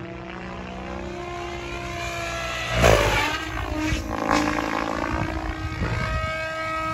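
Banshee 850 radio-controlled helicopter flying aerobatics: the rotor and drive whine climbs in pitch, then falls and climbs again as it manoeuvres. About three seconds in there is a loud rushing burst, with a smaller one about a second later.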